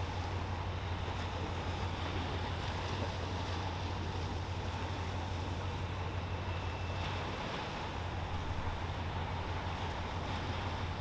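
Wind buffeting the microphone over a steady low drone, with no distinct events.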